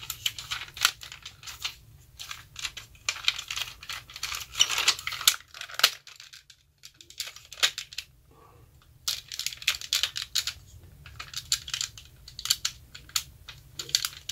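Hard plastic parts of a vintage M.A.S.K. Detonator toy vehicle clicking, tapping and rattling as they are worked by hand, trying to get it to transform, with a quiet pause of about two seconds midway.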